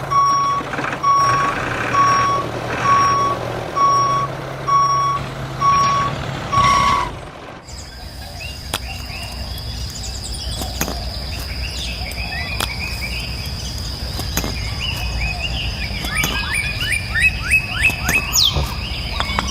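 Vehicle reversing alarm beeping about once a second over a low engine hum; it cuts off about seven seconds in. After that comes a steady high tone with scattered chirping and clicks, the chirps growing busier near the end.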